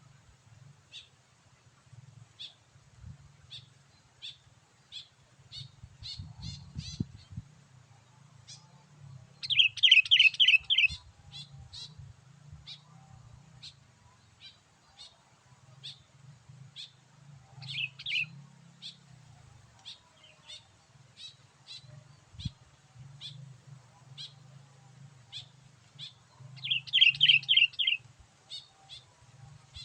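Sooty-headed bulbul song: short chirps repeated about every half second, with louder bursts of rapid bubbly notes about ten seconds in and again near the end. A low hum runs underneath.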